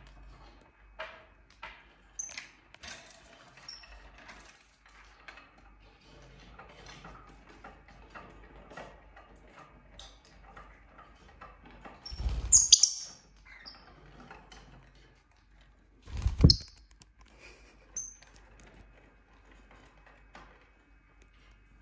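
Pet lovebirds giving short, high chirps and squeaks among faint scratches and clicks. Two louder bumps break in, a little over halfway through and again about four seconds later.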